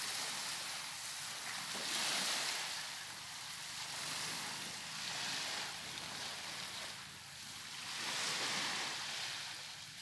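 Small waves washing onto a sandy beach, the surf swelling and fading every few seconds.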